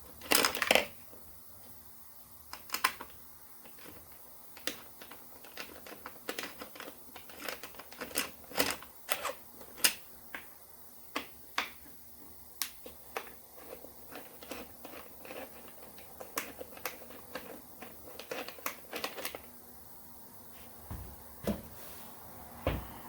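Irregular clicks, taps and light knocks of hand work on the motorcycle: tools and small hard parts being handled, with the loudest cluster of knocks about half a second in.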